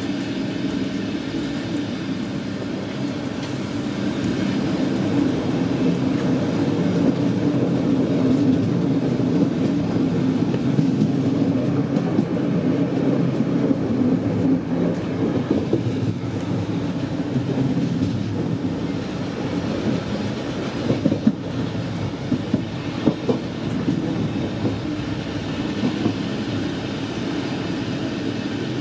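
Steady running noise of an n-Wagen passenger coach's wheels on the track, with a few sharp clacks from the wheels over the rails about three quarters of the way through.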